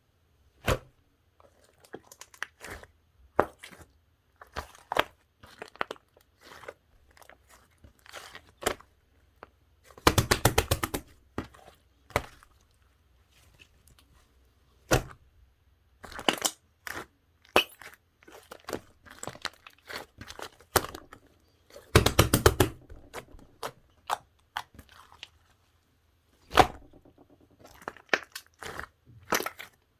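Slime being squeezed and pressed by hand, giving irregular sticky clicks and pops. There are two runs of rapid crackling, about ten seconds in and again a little after twenty seconds.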